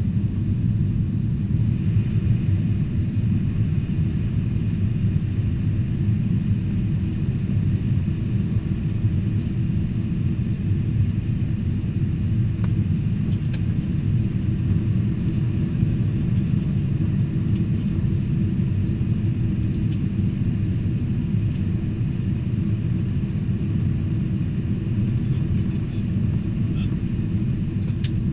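Steady low rumble of a Boeing 747-400 airliner's engines and airflow as heard inside the cabin, with a faint high hum above it.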